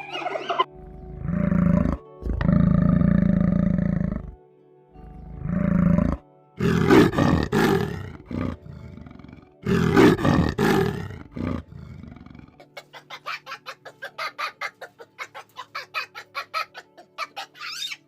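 Animal calls over background music. First comes a run of long, low calls, then a stretch of harsh, loud cries, then a rapid run of short calls at about four or five a second.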